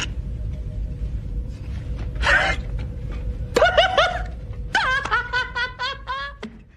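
High-pitched laughter: a breathy burst, then a run of short giggling pulses, about five a second, that fade near the end, over a steady low rumble.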